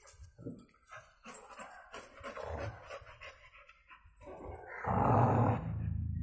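Dogs at play: short snuffling and scuffling sounds, then a low sustained growl lasting about a second and a half near the end.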